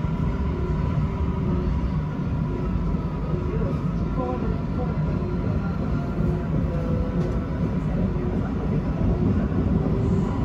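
Siemens Inspiro MRT train running at speed, heard from on board: a steady, dense rumble from wheels on rail with a thin steady whine above it.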